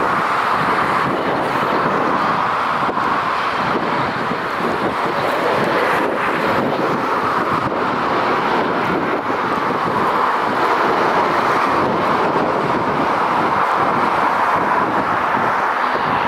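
Eurofighter Typhoon's twin EJ200 turbofan engines, a steady jet noise from the fighter coming in to land with its gear down. Wind buffets the microphone.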